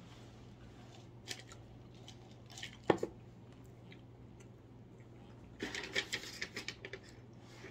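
A few light clicks and taps, then about a second and a half of rapid crinkling and rustling of a plastic snack wrapper being handled, over a low steady hum.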